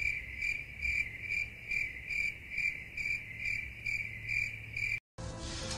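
Cricket chirping sound effect, even chirps about twice a second, the 'crickets' gag for an awkward silence. It cuts off abruptly about five seconds in, giving way to soft background music.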